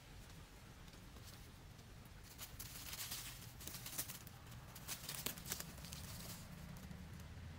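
A quail trapped in a stick-stake cage flapping and struggling, its wings and body rustling the dry leaves and stakes in a quick run of rustles, busiest from about two and a half to six and a half seconds in.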